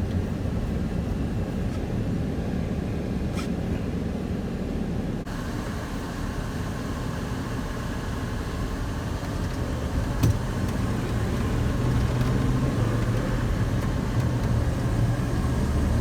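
2001 Dodge Ram pickup's 5.9-litre gasoline V8 running steadily while the truck drives on the road, with a continuous low engine rumble and road noise.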